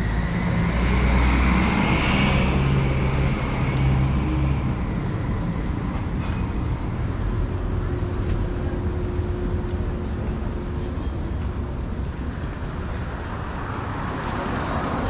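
City traffic: a large vehicle pulls away with a low engine rumble and a whine that rises in pitch over the first couple of seconds. Steady traffic noise follows.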